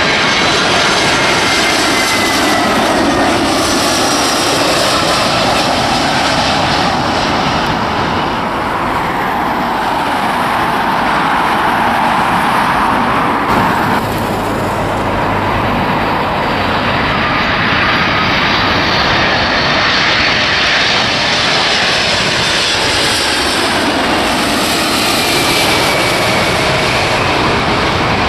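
Jet airliners' engines on low final approach: an Airbus A320-family twin-jet passing with a whine that falls in pitch, then, after a cut about 14 s in, a four-engined Boeing 747 landing, its engine noise rising again near the end.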